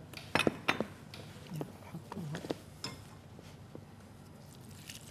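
Metal kitchen bowls and utensils clinking and knocking against each other as ingredients are handled, with a cluster of sharp knocks in the first second and scattered lighter clicks after.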